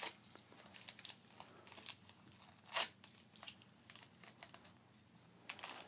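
Gift wrapping paper being torn and crinkled by small hands unwrapping a present: soft rustling with one louder tear about three seconds in.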